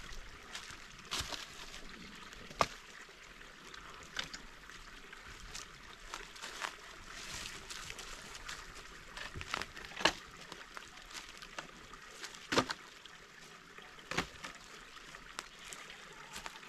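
Footsteps crunching and shuffling through dry fallen leaves while dead branches are picked up and handled for firewood, with several sharp knocks of sticks striking each other or the ground.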